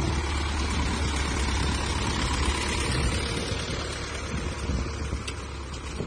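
Zetor tractor's diesel engine running steadily as it pulls a potato hiller through the rows, the engine working under load.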